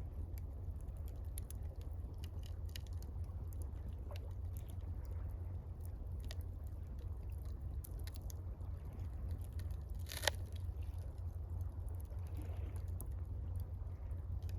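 Wood campfire crackling, with scattered small snaps and one louder pop about ten seconds in, over a steady low rumble.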